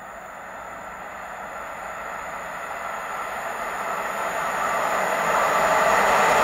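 An EP09 electric locomotive hauling an express passenger train approaches at speed. Its rushing wheel-and-rail noise grows steadily louder.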